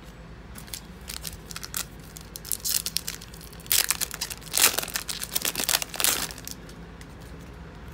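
Foil wrapper of a 2016 Donruss football card pack being torn open and crinkled by hand: a run of crackling rips that build up and are loudest in the middle, stopping about a second and a half before the end.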